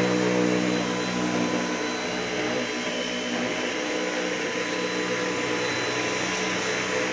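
Dyson V8 Animal Extra cordless stick vacuum running steadily while vacuuming dirt off a hard floor: a constant motor hum under a wide hiss of suction, with a thin high whine.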